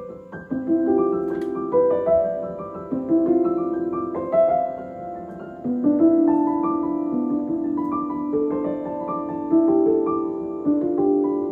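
Background music: a slow piano melody of held, overlapping notes.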